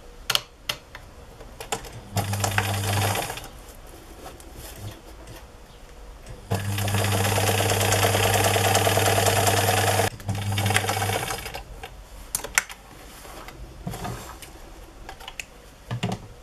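Electric sewing machine stitching an edge stitch in three runs: a short burst about two seconds in, a longer steady run of about three and a half seconds from the middle, and a brief run just after it. Light clicks from handling the fabric and machine in between.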